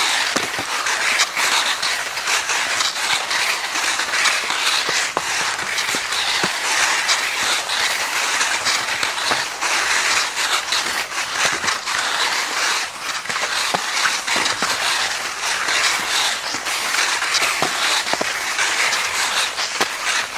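Skis sliding and scraping over crusted spring snow in a steady, gently pulsing hiss, with many small clicks throughout.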